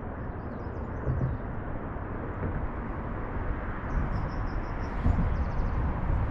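River water rushing steadily, an even noise with a low rumble underneath.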